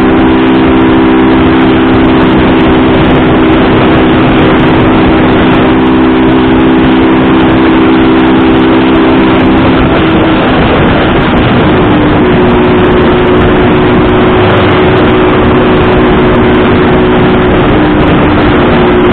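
Motorcycle engine running at a steady speed under heavy wind and road noise, loud and distorted; its pitch shifts about halfway through, as on a gear change.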